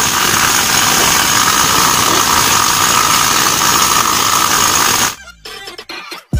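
Rust being chipped off a ship's steel gangway with a chipping tool: a steady, rapid mechanical rattle that cuts off about five seconds in.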